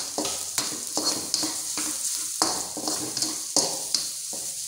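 Egg, chilli, garlic, shallots and sliced meatballs sizzling in hot oil in a wok, with a spatula scraping and knocking against the pan about two to three times a second as they are stir-fried.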